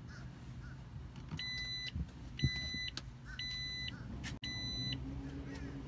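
Four short electronic beeps, about one a second, over a low steady hum, with a couple of soft thumps between the first and second beeps.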